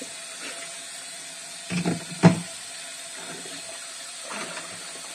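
Kitchen tap running into the sink during dishwashing, with two clunks of dishes about two seconds in.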